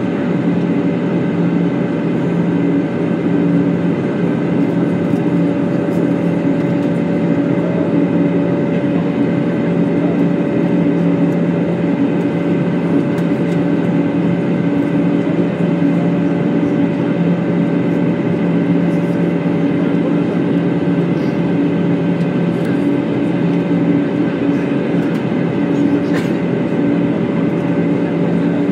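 Steady cabin noise inside an Airbus A320 in descent: the rush of airflow over the fuselage with the jet engines' hum and a few held tones over it.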